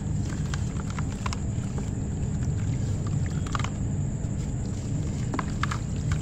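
Wet slabs of pressed ash being squeezed and crumbled by hand into a basin of water, giving scattered short crunches and crackles. A steady low rumble runs underneath and is louder than the crumbling.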